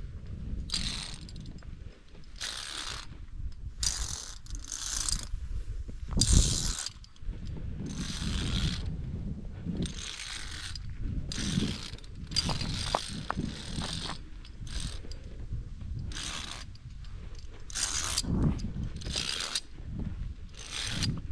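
Metal carabiners of a via ferrata lanyard set scraping and clinking along a steel safety cable in short irregular bursts, roughly one a second, over a low rumble.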